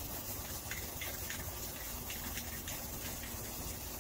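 Aerosol spray paint can hissing steadily as it sprays a mist of paint onto poster board.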